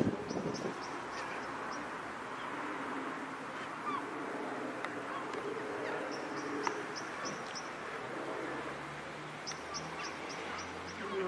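Open-air ambience with small birds chirping in three quick runs of high notes, and a low groan from a cow in labour beginning near the end.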